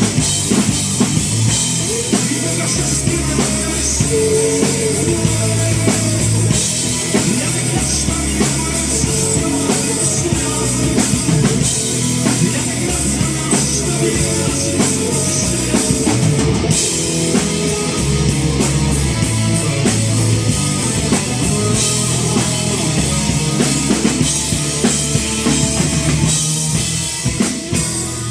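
Live rock band playing an instrumental break between sung lines: a driving drum kit with bass drum under guitar. The cymbal pattern changes a little past halfway through.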